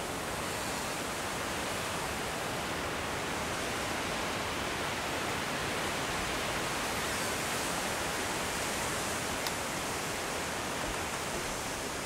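A steady, even rushing hiss with no changes in it, and one faint click about nine and a half seconds in.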